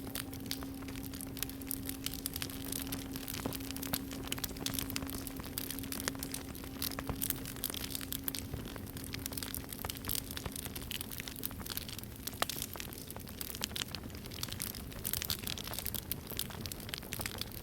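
Campfire crackling and popping throughout, with the low ringing tone of a singing bowl dying away and fading out about two-thirds of the way through.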